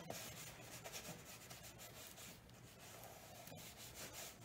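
Faint scratchy rubbing of a wide flat watercolour brush dragged across textured watercolour paper, stroke after stroke.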